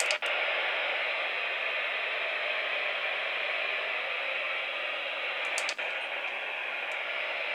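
NOAA weather radio receiver hissing with static, the broadcast voice lost in the noise as the signal fades, with a brief click about six seconds in.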